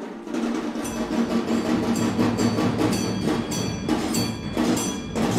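Music with a quick, even percussive beat of about three strikes a second and ringing bell-like notes over it.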